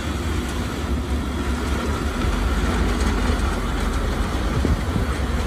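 Diesel engine of heavy earthmoving machinery running steadily, a continuous low rumble with a noisy mechanical haze above it.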